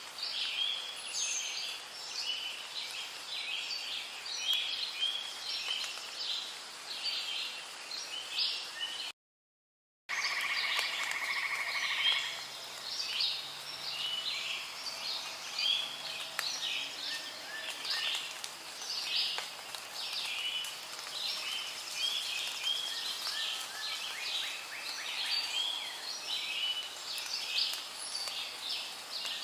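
Rainforest ambience: a dense, unbroken chorus of short chirping animal calls, with frogs and birds among them. About nine seconds in, the chorus cuts to dead silence for just under a second and then resumes.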